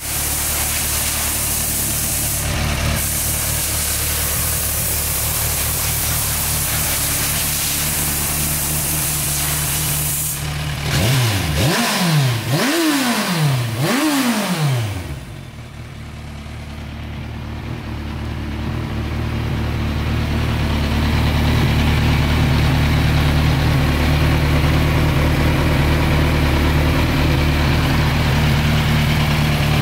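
Kawasaki Z1000SX's inline-four engine, fitted with a carbon-fibre silencer, idling steadily. About eleven seconds in, the throttle is blipped three times in quick succession, each rev rising and dropping straight back to idle, before the engine settles to a steady idle again.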